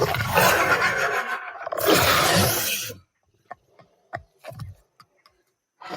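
Designed dinosaur roar sound effect: a loud, deep, rough roar that dips briefly about a second in, swells again and cuts off after about three seconds. A few short sharp sounds follow, and another roar starts at the very end.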